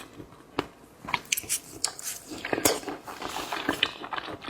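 Close-miked chewing of raw salmon sashimi: irregular wet mouth clicks and smacks, sparse at first and busier after about a second.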